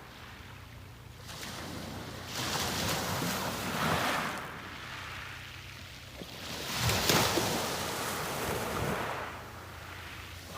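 Sea waves breaking and washing up the beach: two swells of surf, the second a little louder, each rising and falling away.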